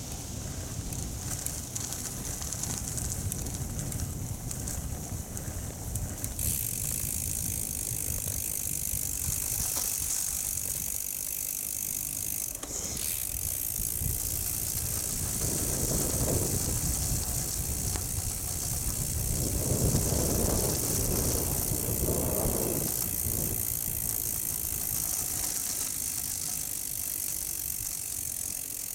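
Bicycle rolling along a gravel road: tyre noise on the gravel with wind rumbling on the microphone.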